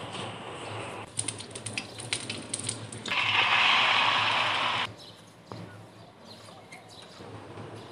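A run of quick, sharp clicks and taps, then loud sizzling from about three seconds in as beaten egg with chopped vegetables is poured into hot fat in a non-stick frying pan. The sizzling cuts off suddenly after about two seconds.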